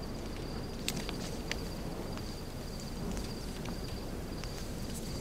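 Quiet ambience: a steady, high-pitched insect-like chirring over a low background hiss, with two faint clicks about one and one and a half seconds in.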